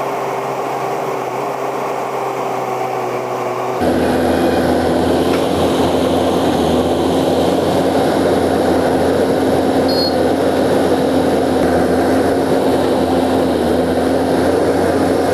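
An engine runs steadily with a constant droning tone. It jumps abruptly louder about four seconds in, then holds steady.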